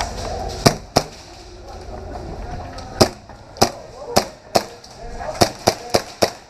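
Airsoft guns firing single shots in an indoor arena: about ten sharp cracks at irregular intervals, bunching closer together in the second half.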